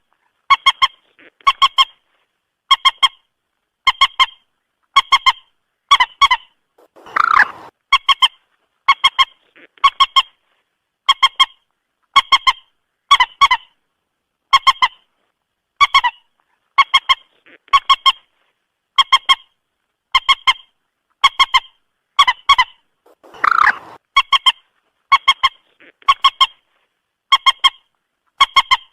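Common moorhen calling: short clucking calls of a few quick notes, repeated about once a second, with a longer harsh call twice, about seven seconds in and again near twenty-three seconds in.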